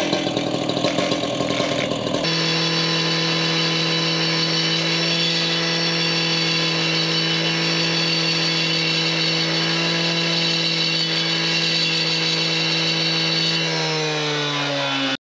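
Two-stroke gas cut-off saw cutting a notch into a stone veneer panel for the step. It runs roughly for the first couple of seconds, then holds a steady high-revving note, and falls in pitch near the end as the throttle is released and the engine winds down.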